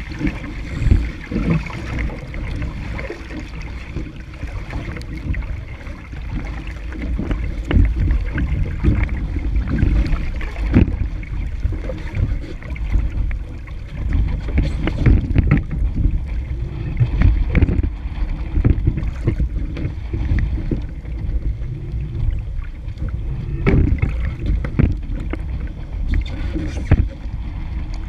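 Wind buffeting a deck-mounted camera's microphone over water rushing and slapping against a sailing dinghy's hull under sail in chop. There are frequent irregular thumps as the hull meets the waves.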